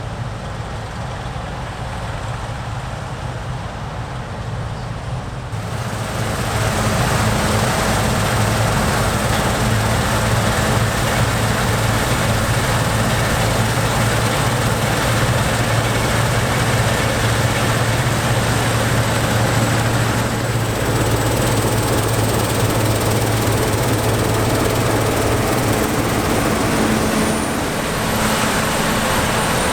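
Heavy harvest machinery running steadily: a deep diesel drone overlaid with broad mechanical noise. The noise gets louder about six seconds in, as if the machine comes closer, then holds steady.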